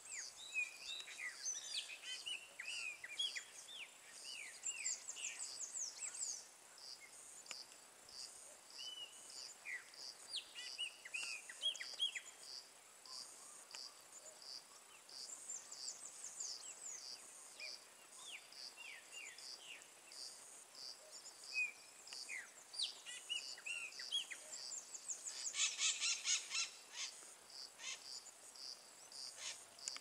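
A flock of chopi blackbirds calling together in a chorus of quick, sharp whistled notes that slide downward, with a dense burst of calls near the end. An insect chirps in an even rhythm behind them.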